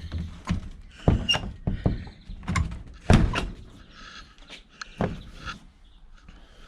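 Knocks and clicks of a vintage sidecar's old door latch and hinged panel being worked; the latch is dry and wants oiling. There are several separate sharp knocks, the loudest about a second in, around three seconds in and about five seconds in.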